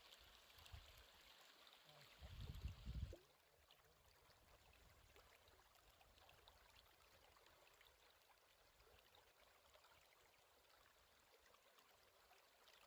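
Near silence: only the faint, even sound of running river water, with a brief low rumble about two seconds in.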